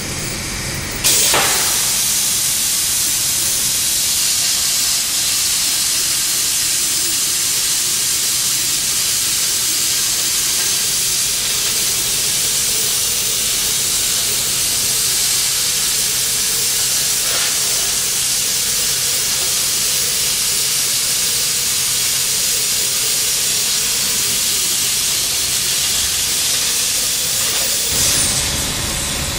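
Cutting torch of a Vernet Behringer CNC beam-processing machine hissing steadily as it cuts through a steel beam. The hiss starts abruptly about a second in and drops back a little near the end as the cut finishes.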